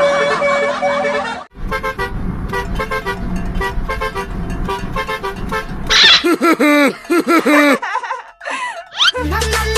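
Multi-tone 'telolet' bus horn playing melodic toots, in a few cut-together clips, with a low rumble under the middle part. Warbling, bending notes come around six to eight seconds in, and music starts near the end.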